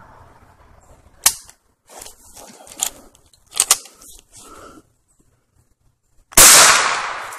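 A few sharp clicks and rustles, then a single loud gunshot from a hunting gun about six seconds in, with a tail that dies away over about a second.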